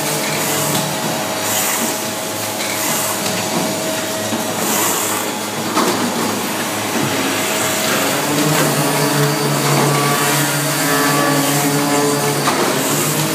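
Saturno 2 cardboard-processing machine running: a steady motor drone and hum with short hisses recurring every second or two as its pneumatic heads work. A deeper hum grows louder about eight seconds in.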